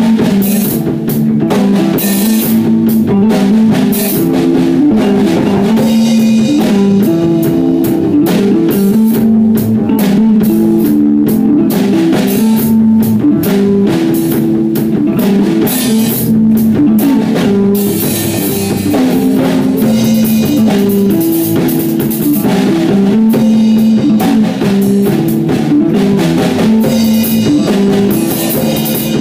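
Live instrumental rock jam: a drum kit with cymbals and amplified electric guitars playing together, loud and continuous, with a repeating riff and no vocals.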